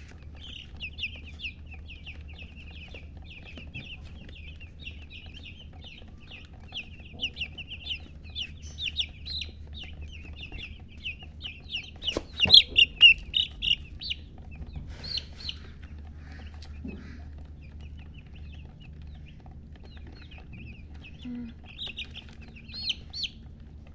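Baby chicks peeping: a fast, busy stream of short high chirps that thins out a little past halfway, with a few more chirps near the end.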